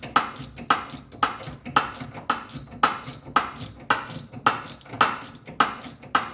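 Sharp metallic clicks repeating evenly, about two a second, each with a short ring, from hand-tool work on the steering rack's fittings.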